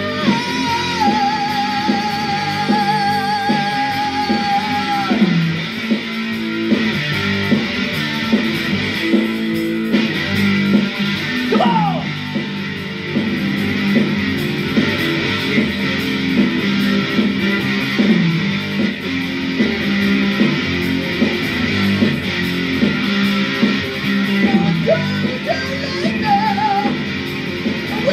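Rock music with electric guitar and singing. About a second in, one long note wavers for some four seconds.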